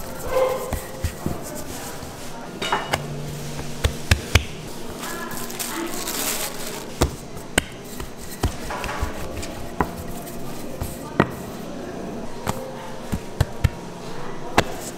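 Bakery work clatter: irregular sharp knocks and clicks of tools and pans, with a short steady machine hum about three seconds in.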